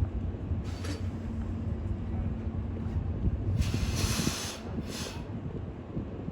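Steam locomotive C58 363 standing by, with a steady low hum and short hissing bursts of escaping steam: a brief one under a second in, a longer one of about a second near the middle, and another shortly after.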